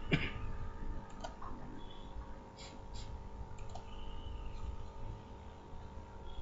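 Computer mouse clicking a few times: one sharp click just after the start, then fainter scattered clicks, over a steady low electrical hum.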